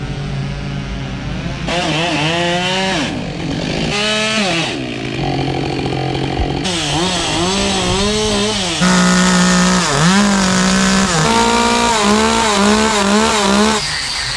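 Petrol chainsaw cutting into wood, its engine revving up and dropping back again and again as the throttle is worked, in a string of short clips that change abruptly.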